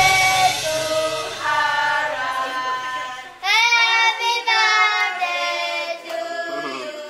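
A song with several singing voices over light musical backing; a louder sung phrase comes in about halfway through.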